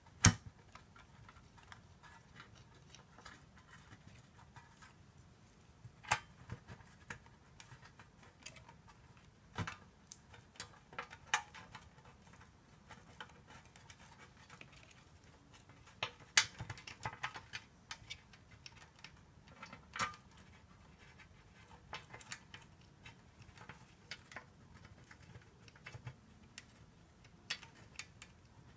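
Irregular small metallic clicks and taps as the steel transmission pan's bolts are picked from a metal parts tray and threaded in by hand around the pan, a few clicks sharper than the rest.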